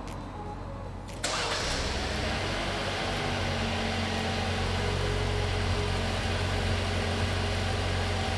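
2020 Jeep Wrangler's engine starting by its aftermarket remote starter: about a second in it fires with a sudden burst, then settles into a steady idle, showing the remote start works.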